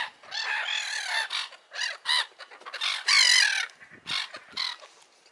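A group of gulls calling, a quick run of short squealing calls one after another, some overlapping, with the loudest call about three seconds in.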